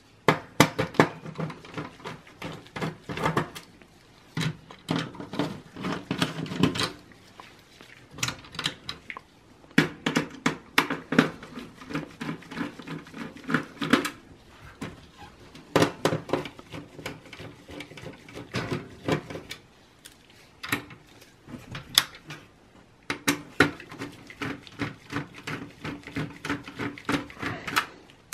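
Phillips screwdriver backing out the motherboard screws in a steel computer case: runs of small metallic clicks, scrapes and taps, with short pauses between the screws.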